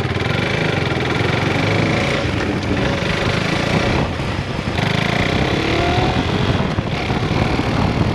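KTM 390 Adventure's single-cylinder engine running as the motorcycle is ridden, mixed with wind rush, its pitch rising briefly about five seconds in as it revs.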